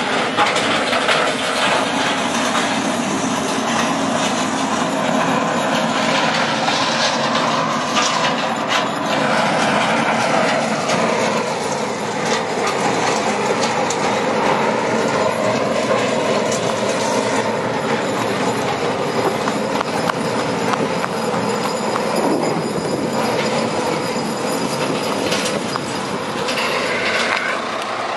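Heavy diesel engine of a Terex all-terrain crane running as the crane drives onto a lowboy trailer's ramps, with metal creaking and squealing from the loaded trailer and a few knocks.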